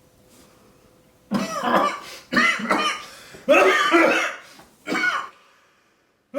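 A man coughing four times in quick succession, voiced and loud, as his throat and nose react to inhaled Carolina Reaper chili powder.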